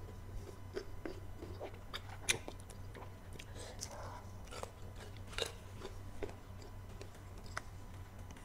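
Biting and chewing crisp slices of unripe green mango, with repeated short, sharp crunches.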